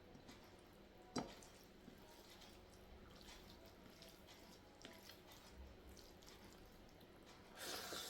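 Faint, wet eating sounds of sambar rice being mixed and chewed, with small squishes and ticks. A sharp click about a second in, and a louder rustling noise near the end.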